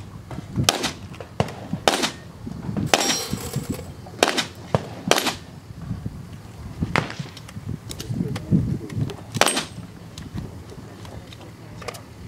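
Gunshots fired one at a time at uneven intervals: several in quick succession over the first five seconds, then a few more spaced well apart.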